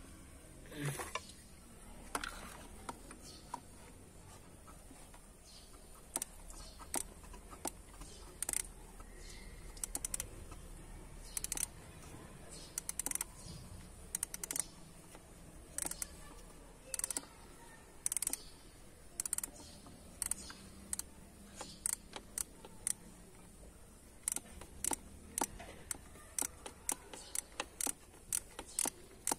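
Sharp metallic clicks and taps of a hand tool working on the thermostat housing screws of a VW Golf 5 BKD 2.0 TDI engine, scattered at first, then coming more often and in short runs over the last several seconds.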